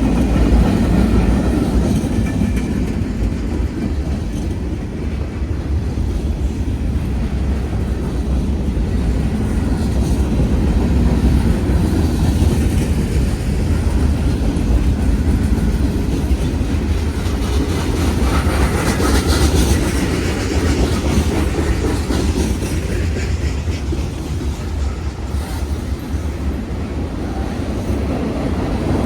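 Norfolk Southern freight train cars rolling past a grade crossing: a steady heavy rumble with the clickety-clack of wheels over the rail joints. About two-thirds of the way through, a brief sharper, higher metallic edge rises in the sound.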